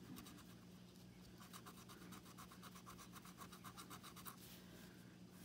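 Faint scratching of a plastic scratcher tool rubbing the coating off a scratch-off lottery ticket, in a run of quick, even back-and-forth strokes through the middle.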